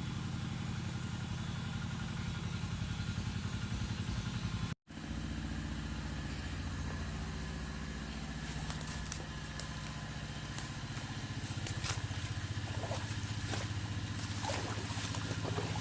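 Small motorcycle engine running steadily, dropping out abruptly for a moment about five seconds in, with light clicks and ticks over it in the second half.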